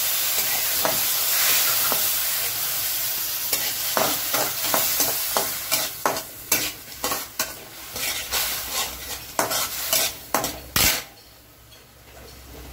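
Lemon juice with turmeric poured into hot oil over tempered onions, chillies and dals, sizzling hard for the first few seconds. The sizzle dies down while a metal spatula stirs and scrapes the pan in quick strokes, and it goes quieter near the end.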